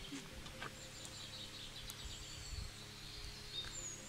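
Faint outdoor ambience: birds chirping now and then, high and thin, over a low steady background noise.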